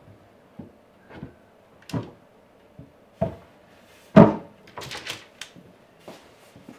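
A solid wooden cabinet top being lowered onto a wooden cabinet and settled into place while its fit is tested: a series of separate wooden knocks and thunks, the loudest about four seconds in, followed by a quick cluster of lighter knocks.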